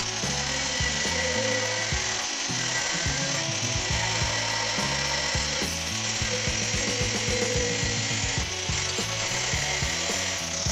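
Electric angle grinder with a cutting disc cutting into the steel wall of an air compressor tank, running steadily under load.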